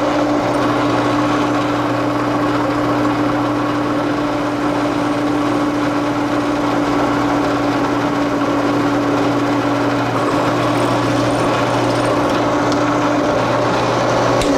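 Drill press running at low speed while a Harbor Freight step drill bit cuts into thin-walled rectangular steel tubing, lubricated with cutting oil. It is a steady mechanical hum, and a higher tone in it fades away late on.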